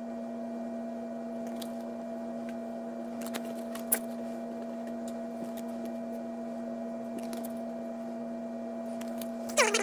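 A steady electrical hum with a low tone and a fainter higher tone above it. Trading cards being handled make faint clicks and a sharp tick about four seconds in, and right at the end a cat's meow begins, sliding downward in pitch.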